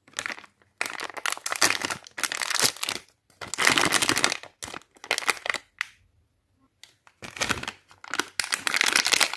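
Plastic candy bag crinkling in several bursts as hands work it open and reach in for jelly sweets, with short pauses between the bursts.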